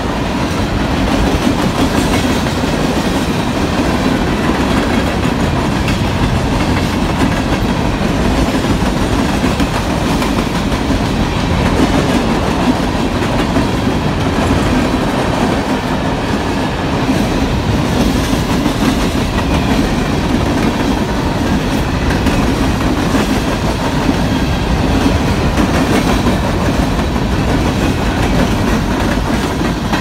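CSX open-top coke hopper cars rolling past close by: a steady, loud rumble and clatter of steel wheels on the rails, with no break.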